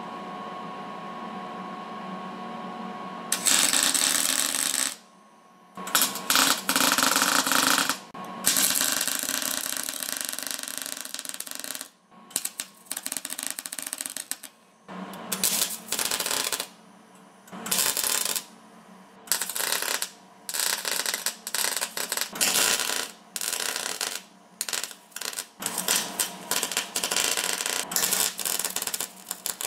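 Wire-feed welder arc crackling and hissing as it welds steel onto a steel wheel rim, in stop-start runs: a few long runs first, then many short bursts. This is a cheap welder that was giving wire-feed problems. A steady hum comes before the first arc strikes, about three seconds in.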